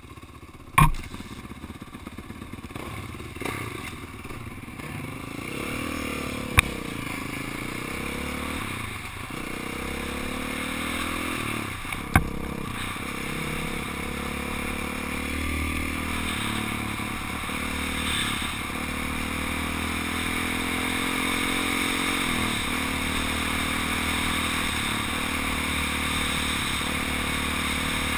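Honda CRF450R dirt bike's single-cylinder four-stroke engine pulling away and running at speed, its pitch climbing and dropping again and again as the rider accelerates and shifts gears, with rushing wind noise that grows with speed. Three sharp knocks stand out in the first half.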